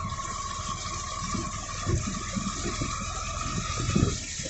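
Auto-rickshaw riding along a flooded road: a steady high whine from the vehicle's drive, which stops near the end, over the rumble of the wheels and water sloshing.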